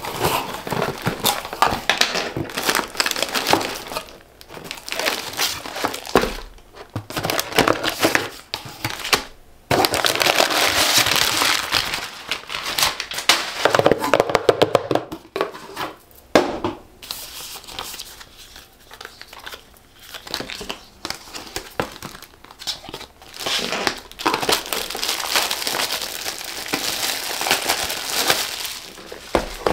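Hands crinkling cellophane-wrapped cosmetic boxes and handling a cardboard shipping box, in irregular bursts of crinkling and rustling with short pauses between.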